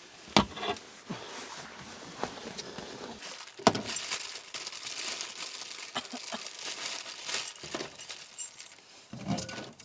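Gear being handled and set up: scattered clicks, knocks and crinkling rustle, with two sharp knocks about half a second and three and a half seconds in.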